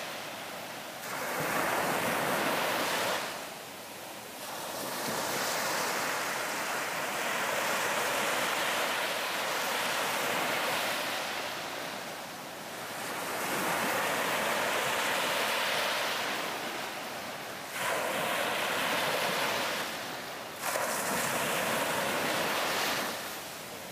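Ocean waves breaking on a beach, the surf swelling and falling back every few seconds as each wave comes in and washes out.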